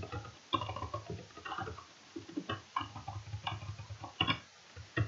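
Computer keyboard typing: irregular keystroke clicks, with sharper clicks about four seconds in and near the end.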